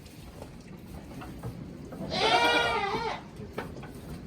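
A goat bleats once, about two seconds in: a single call about a second long.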